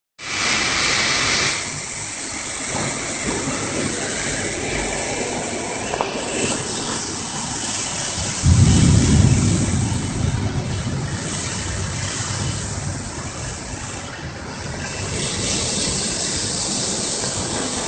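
Cyclone Ockhi's storm wind making a steady rushing noise, with a gust buffeting the microphone in a low rumble about eight and a half seconds in, lasting a couple of seconds.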